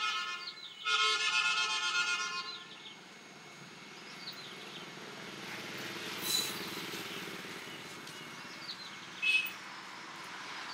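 Street traffic: a vehicle horn sounds in two long blasts over the first few seconds, then a motorbike passes at an even pitch. Two brief high chirps come later, one about six seconds in and one near the end.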